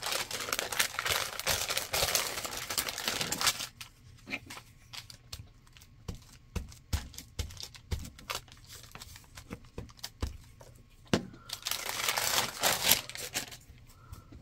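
Paper rustling and crinkling as magazine cutouts and a sheet of brown scrap paper are handled, loudest for the first few seconds and again about twelve seconds in, with light taps and handling noises between.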